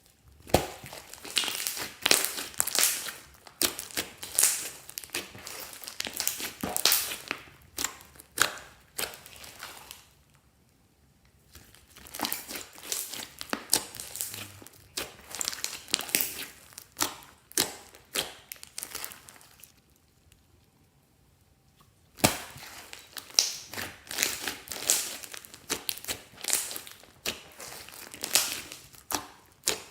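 Glossy slime being squished and kneaded by hand, making dense crackling, sticky clicks and pops in three spells of several seconds each with short pauses between them.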